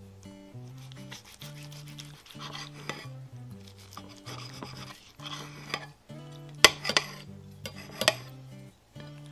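Knife sawing through a seared ribeye steak on a plate, a rasping scrape with each stroke. A few sharp clicks come about two-thirds of the way in.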